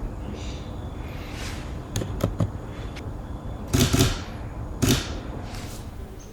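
A few sharp clicks, then two louder knocks or thuds about a second apart, with short swishing handling noises in between.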